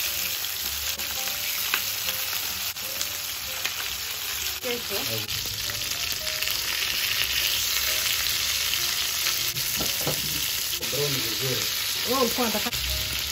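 Marinated chicken pieces sizzling steadily in palm oil in a frying pan. A metal spatula scrapes and taps against the pan a few times as the pieces are turned.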